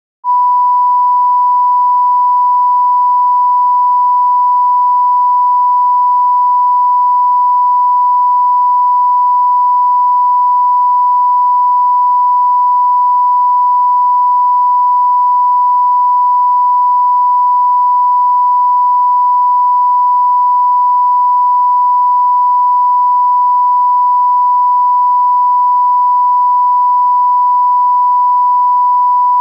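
A 1 kHz pure sine test tone that switches on just after the start and holds at one steady pitch and level.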